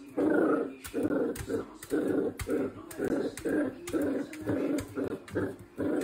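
Miniature dachshund puppy play-growling at its own reflection in quick short bursts, about three a second, with sharp taps mixed in.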